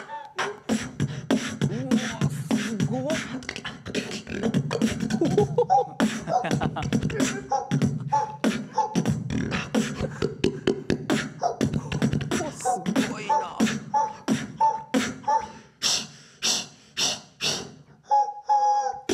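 Solo human beatboxing into a handheld microphone: a fast, dense run of mouth-made drum hits over a steady low bass tone, with short high pitched notes dropping in now and then. The bass falls away about two-thirds of the way through, leaving fewer, sharper hissing hits near the end.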